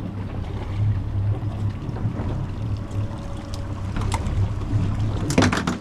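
Steady low rumble aboard a fishing boat, with wind and water noise over it. A quick cluster of knocks and clatters comes near the end.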